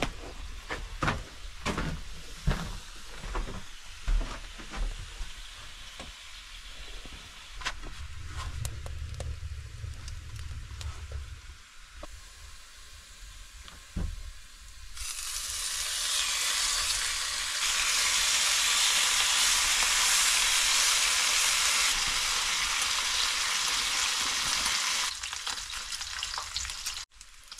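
Bacon sizzling in a frying pan: the hiss starts about halfway through as the strips are laid in, builds to a loud steady sizzle, and eases a little near the end. Before that there are scattered knocks and clatter of things being handled.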